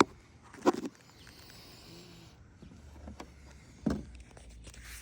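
Handling noises from tools and the camera at a workbench engine: a sharp click at the start, then two dull knocks, one about a second in and one near the four-second mark, with a short faint hiss between them.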